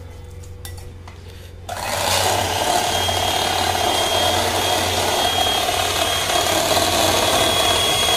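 Electric hand mixer switched on about two seconds in and running steadily, its beaters whipping a thick yogurt-and-spice marinade in a glass bowl.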